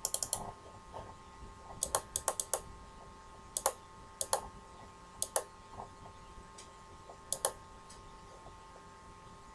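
Scattered clicks of a computer mouse and keyboard, some single and some in quick runs of three or four, over a faint steady hum.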